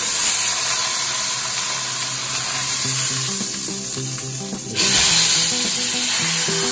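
Pork shoulder searing in hot olive oil in a stainless steel pot, sizzling steadily. The sizzle jumps suddenly louder about five seconds in, as the turned meat is laid back down into the pot with metal tongs. Background music plays along with it.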